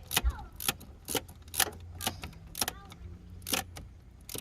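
Irregular sharp clicks, roughly two a second, with short squeaks after some of them: a screw being driven in to fasten the Camaro's center console trim.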